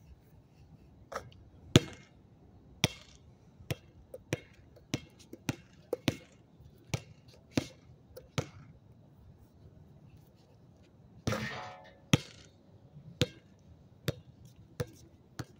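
A basketball dribbled on a hard court: sharp single bounces, roughly one every two-thirds of a second. The bouncing stops for a couple of seconds past the middle, a longer rough noise follows, and then the bouncing picks up again.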